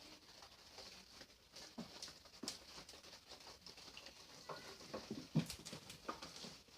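Goats moving about, their hooves pattering with scattered short knocks and clatters that grow louder about five seconds in.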